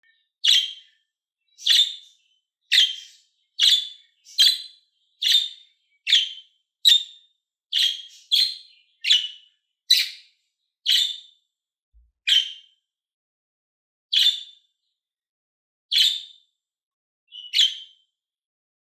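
A bird giving short, single chirps, about one a second at first and then more widely spaced, with silence between them.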